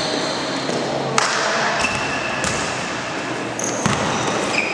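Basketball dribbled on an indoor hardwood court, with a few sharp bounces standing out, and short high sneaker squeaks from players cutting on the floor, over the steady noise of a gym hall.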